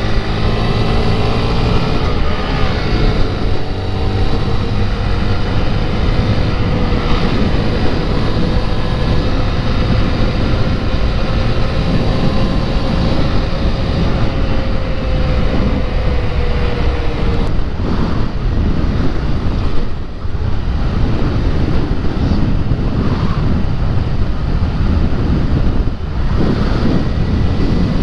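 Heavy wind noise on the microphone over a Honda Grom's small single-cylinder engine at full throttle, its tone rising slowly as the bike accelerates toward top speed. The engine note fades into the wind about 17 seconds in, with a brief drop in loudness around 20 seconds.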